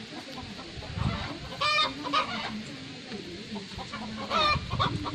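Chickens clucking, with short, higher calls about a second and a half in and again near the end, over some low rustling.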